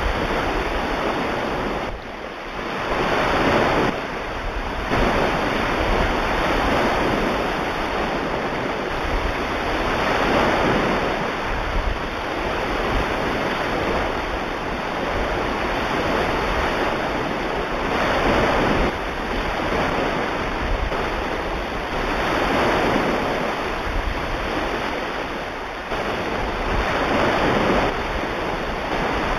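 Recorded ocean surf: waves rolling in and washing back in slow, uneven swells of noise.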